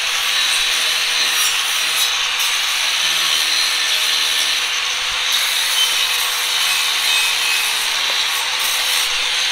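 Power tool grinding metal: a steady, unbroken hiss with a faint steady whine beneath it.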